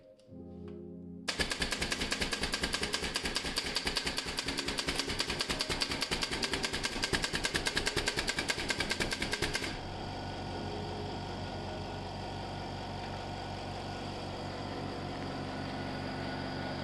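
A machine running with a rapid, even rattle for about eight seconds, then changing to a quieter, steady hum.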